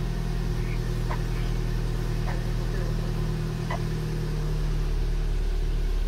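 Nissan Grand Livina's four-cylinder petrol engine idling steadily, heard from inside the cabin.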